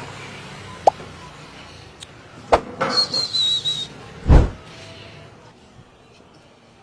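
A few sharp knocks, a short warbling high whistle-like tone about three seconds in, then a heavy thump.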